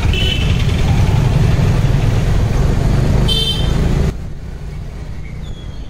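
Low wind and engine rumble of a scooter riding through street traffic, with two short horn toots, one just after the start and one around three seconds in. The rumble drops off suddenly about four seconds in.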